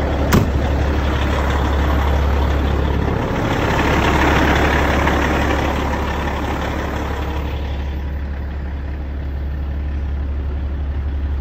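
Semi truck's diesel engine running at idle just after starting, a steady low drone, with a sharp click about half a second in and a rushing noise that swells near the middle and then fades.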